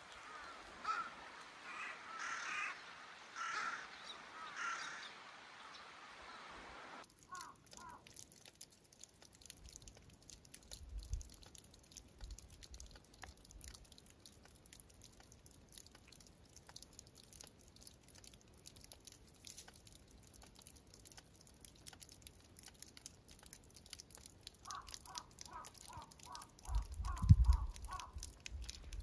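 A crow cawing several times over the first several seconds. Then snowmelt water trickling and dripping under the snow, a fine steady patter of tiny drips, with a bird's quick run of about ten even notes near the end and a low rumble on the microphone, the loudest sound, just after it.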